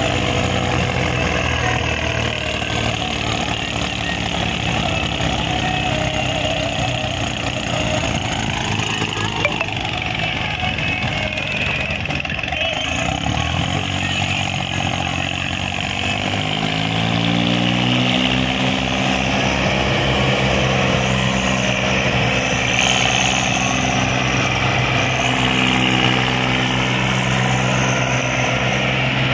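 Diesel tractor engines working under heavy load as a Swaraj 744 XT hauls a fully loaded earth trolley with a Mahindra 575 DI assisting. The engine note sags around the middle, then climbs in pitch as the throttle opens at about sixteen seconds and holds there.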